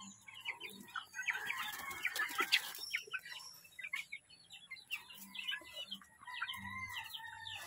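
A flock of young chickens peeping and clucking in many short, quick calls, with a brief rustle about a second and a half in and a longer held call near the end.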